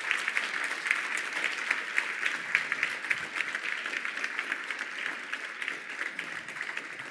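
Audience applauding, a dense patter of clapping that slowly thins out towards the end.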